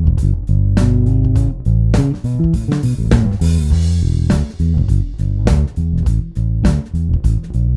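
Electric bass guitar played through a Darkglass Alpha Omega 900 bass amplifier head: a quick line of notes, each with a sharp, bright attack over a deep body.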